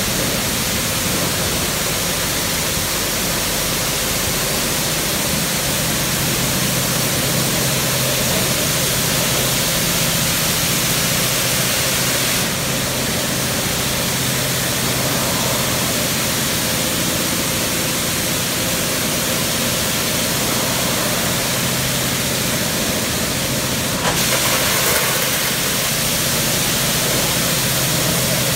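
Oasis XP in-bay automatic car wash spraying a vehicle: a steady hiss of water jets hitting the body, with a low pump hum underneath. The spray changes tone twice, about twelve seconds in and again about twenty-four seconds in.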